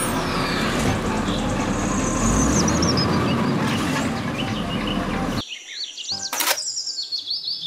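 Side-loading garbage truck running, its automated arm lifting and emptying a wheelie bin. The truck noise cuts off suddenly about five and a half seconds in, leaving background music with chirping sounds.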